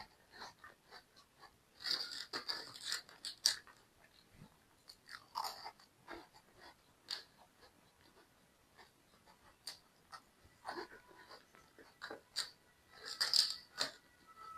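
Close-up eating sounds: crisp pastry crunching under bites and chewing, in two louder bursts, about two seconds in and again near the end, with softer crackles between.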